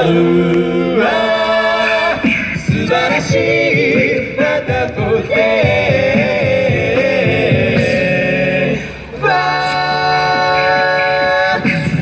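A vocal group singing a cappella in close harmony, holding chords and moving from one to the next, with a short break about nine seconds in.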